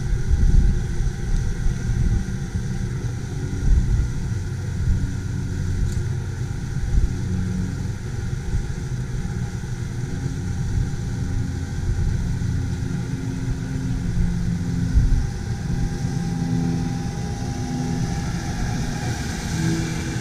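Allett C34E battery-electric cylinder mower cutting grass: a steady motor and cylinder whirr under an uneven low rumble.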